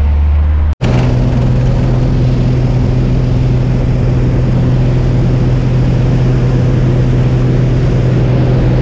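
Light aircraft's piston engine heard from inside the cabin: a low steady drone that cuts off abruptly about a second in, then a steady, higher-pitched engine note at higher power, with rushing noise.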